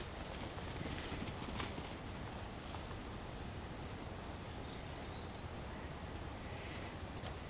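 Saluki puppies mouthing and chewing a leather shoe: faint scattered clicks and scuffs over a steady low outdoor rumble, with one sharper click about a second and a half in.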